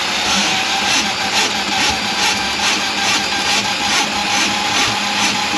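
Electric drain-cleaning machine running, its motor whirring steadily with a regular rattle about twice a second as the cable spins in the sink drain line.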